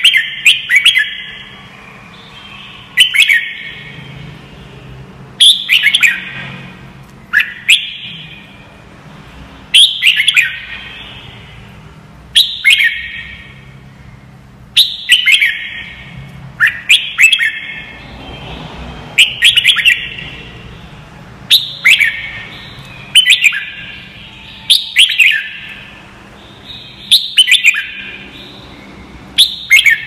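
Red-whiskered bulbul singing: short, loud phrases of quick whistled notes that fall in pitch, repeated about every two seconds. A faint steady low hum runs beneath.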